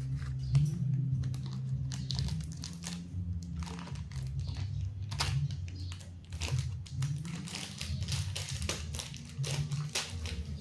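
Plastic lollipop wrappers crinkling as they are handled, in a run of quick, irregular crackles.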